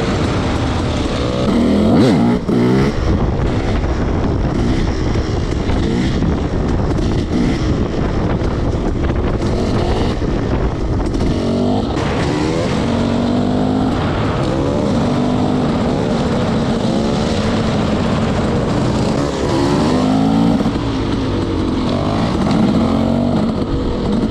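300cc two-stroke enduro dirt bike engine under riding load, revving up and dropping back again and again as the throttle is worked and gears change.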